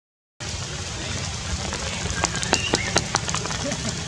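Rain on tree foliage: a steady hiss with irregular sharp taps of drops striking leaves, more of them in the second half. The sound cuts out for a moment at the very start.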